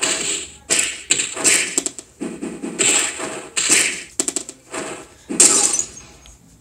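Stick-figure fight animation's hit sound effects, played through computer speakers: a string of sharp, noisy hits roughly every half second, which stops about six seconds in.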